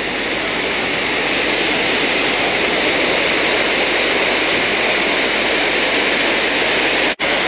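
Steady rush of falling mountain water, an even hiss with no pitch to it, which cuts out for an instant near the end.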